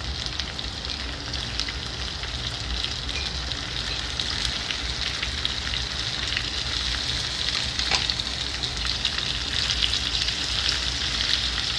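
Raw pork chunks sizzling in hot olive oil with browning garlic and onions in a frying pan: a steady crackle of fat spitting, growing a little louder in the second half.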